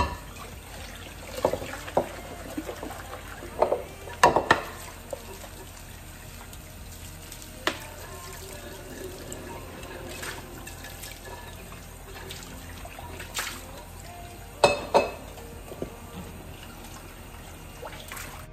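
Kitchen faucet running steadily into a sink of soapy water while a ceramic mixing bowl and a wooden bowl are washed by hand. Several sharp knocks and clinks of the bowls against the sink sound through it, the loudest at the start and about fifteen seconds in.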